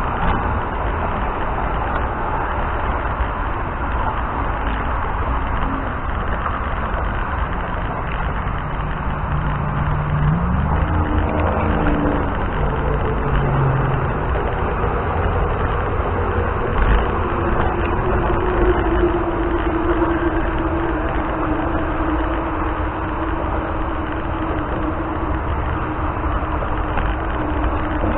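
Steady wind and road noise of a moving scooter ride, buffeting the helmet-worn microphone. An engine's note rises in steps about a third of the way in, and a second engine note slowly falls off in pitch past the middle.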